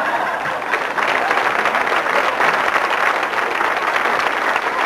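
Studio audience applauding after a punchline, a dense, steady patter of many hands clapping.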